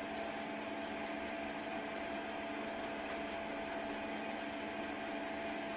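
Steady hiss with a low, constant hum and a few steady tones, unchanging throughout, with no distinct events.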